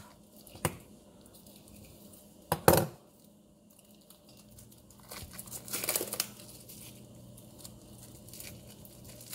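Plastic wrap on a cucumber crinkling and tearing as it is handled and pulled at, the crinkling loudest around five to six and a half seconds in. A sharp knock comes about two and a half seconds in, with a softer one before it.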